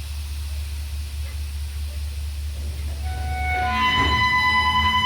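Diesel locomotive engine idling with a steady low rumble and a faint hiss of air. About three seconds in, a steady high-pitched tone with overtones sets in and grows louder.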